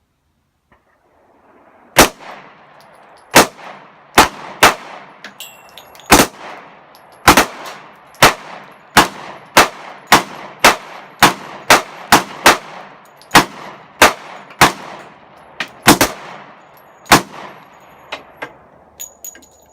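Firearm shot about twenty times in a steady string, roughly one shot every half second to second, beginning about two seconds in; a few fainter pops follow near the end.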